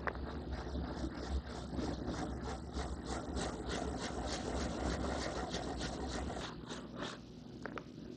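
Sanding block with wet 600-grit sandpaper rubbing back and forth over the clear coat of a guitar body in quick, even strokes, levelling the edge of a clear-coat repair; the strokes stop about six and a half seconds in.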